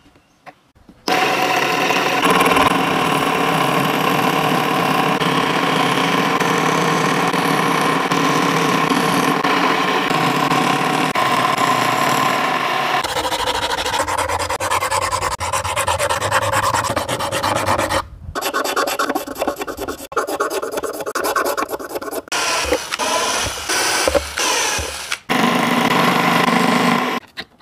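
Small motor-driven scroll saw running steadily as it cuts slots in a PVC plate. After about 13 seconds comes a rough back-and-forth rasping as a wooden stick is worked by hand inside the slots to smooth their edges, in several short stretches.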